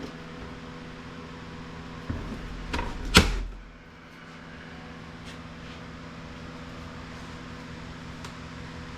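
Plastic printer housing being pried apart: a few sharp clicks, then one loud crack with a short thud about three seconds in as a part snaps loose, over a steady low hum.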